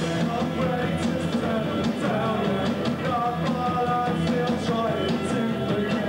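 Live rock band playing: distorted electric guitar, drums with regular cymbal hits, and a sung vocal line over the top.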